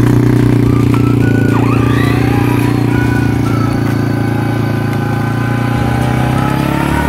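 Small gasoline ATV engine running at a steady speed, an even low drone.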